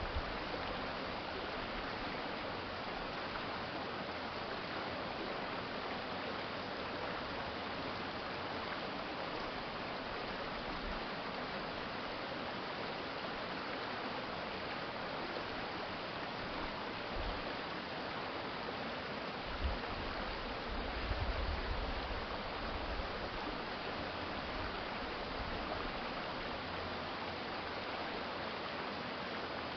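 City stream flowing: a steady rush of running water. A few brief low rumbles come through in the second half.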